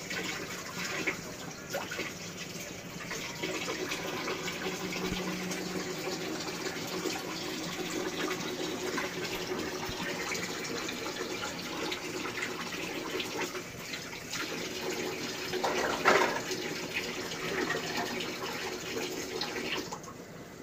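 Steady hiss of a gas stove burner on low flame heating a pan of dry sugar as it begins to melt, with one brief louder noise about three-quarters of the way through.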